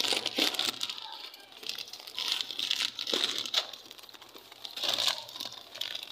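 Plastic crinkling and rustling in several short, crackly bursts.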